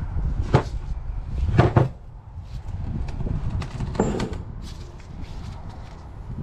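Metal hub parts handled on a workbench: a few sharp knocks and clinks, the loudest two close together about a second and a half in, over a low rumble.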